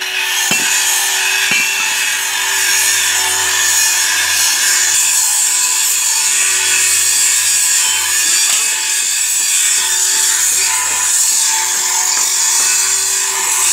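Power tool working the steel of a wrought-iron gate, a loud, steady grinding hiss with a faint steady hum beneath it.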